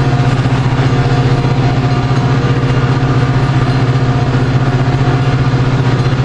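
Metra diesel passenger locomotive standing at the platform with its engine running, a loud steady low drone with a fine even pulse.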